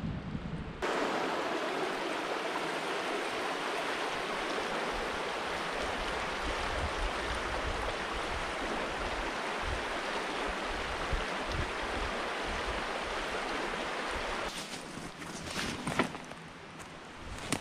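Shallow rocky stream running over stones, a steady rush of water. About three seconds before the end it gives way to scattered rustles and crunches in dry leaf litter, with one sharp click among them.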